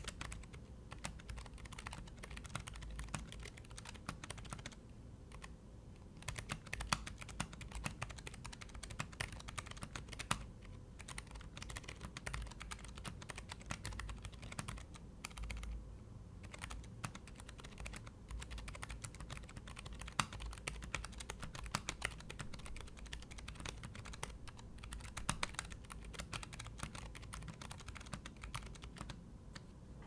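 Typing on a Keychron K3 low-profile mechanical keyboard with brown switches: a fast, continuous patter of key clicks, broken by brief pauses every few seconds.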